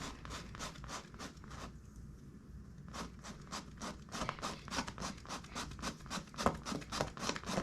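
Sandpaper from a tube patch kit rubbed back and forth over the rubber around a puncture, scuffing it up to prepare it for the patch glue. Quick scratchy strokes, about four or five a second, pause briefly about two seconds in, then grow stronger near the end.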